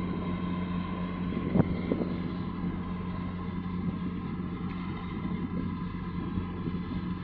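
Boat engines running steadily nearby: a low, even hum with a faint steady whine above it. A short knock about one and a half seconds in.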